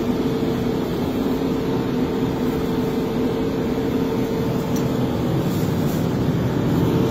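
Victory Sweepers Mark III street sweeper running while it sweeps, heard from inside the cab: a steady drone of engine and sweeping gear with a constant hum.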